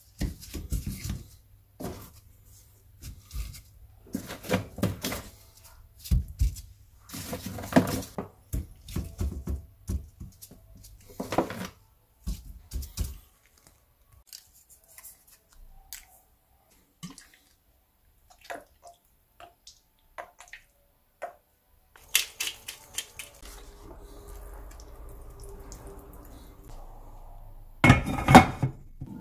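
Wooden spatula knocking and scraping in a stainless steel frying pan while onion and garlic fry, a run of sharp clacks. After a quieter stretch, a glass lid clatters onto the pan near the end.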